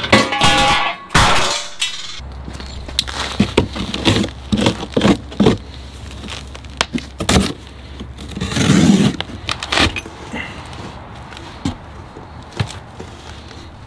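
Metal snow-plow parts and loose hardware being handled: a run of clanks, knocks and rattles, with a bigger clatter in the first second or so. About nine seconds in there is a longer rustle as the cardboard box of the new deflector kit is opened.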